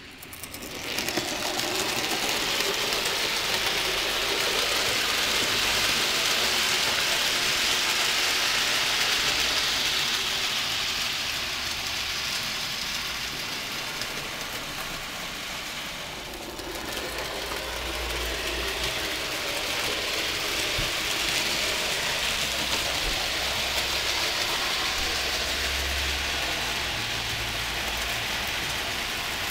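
00 gauge model freight train running on the layout track: a steady rolling hiss of wheels on the rails that swells and eases, with a brief dip about halfway through.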